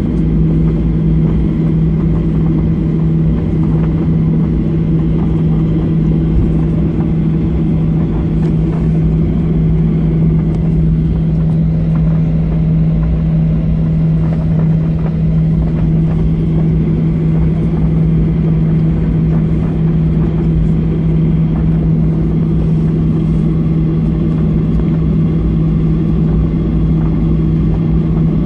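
Airliner cabin noise heard from a window seat: a loud, steady engine drone with a strong constant low hum, while the plane is on the ground among other aircraft.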